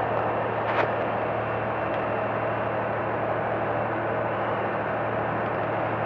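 Heavy construction machinery's diesel engine running steadily with a constant low hum, with one light click a little under a second in.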